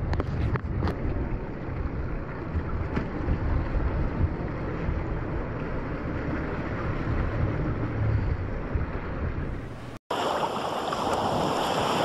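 Wind buffeting the microphone over choppy sea water, a steady low rumble with a few clicks in the first second. About ten seconds in it cuts to a louder, brighter rush of wind and water.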